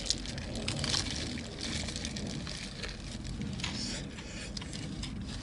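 Close-miked chewing of a sauced fried chicken wing, with many small clicks from the mouth.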